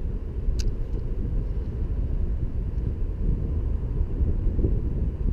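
Wind buffeting the camera microphone as a steady low rumble, with one sharp click about half a second in.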